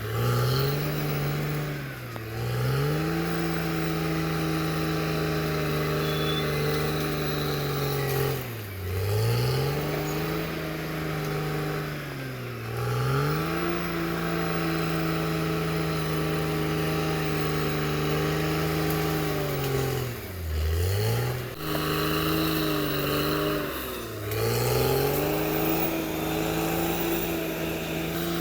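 Caterpillar D6R XL bulldozer's diesel engine running at high revs, its pitch dropping sharply and picking back up about five times.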